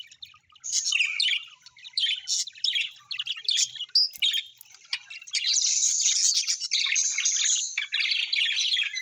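Birds chirping and chattering in quick, high calls. The calls come in short bursts with brief gaps at first, then run together into a continuous busy chatter from a little past halfway.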